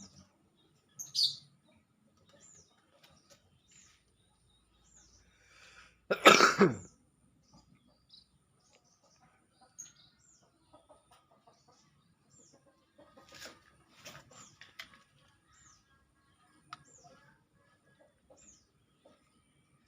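A man coughs once, loudly and briefly, about six seconds in. Short high chirps from small birds come about once a second throughout, and there is a stretch of light rustling and clicking near the middle.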